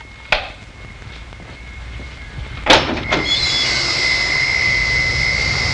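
A click near the start, then a door bangs open about three seconds in. The high whine of idling Cessna T-37 jet engines on the flight line comes in loud and holds steady.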